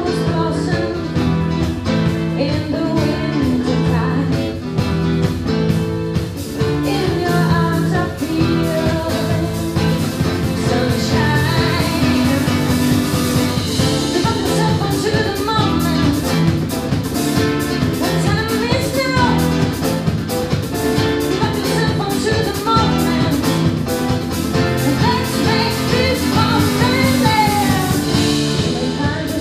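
Live band playing a rock song: a voice singing over guitar with a steady driving beat.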